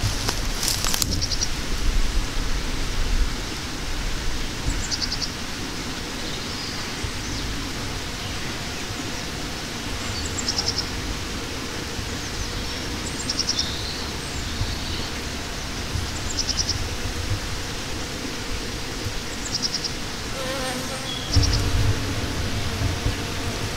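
Honeybees buzzing faintly over a steady outdoor hiss. Short high chirps recur every few seconds, and low rumbles come near the start and again near the end.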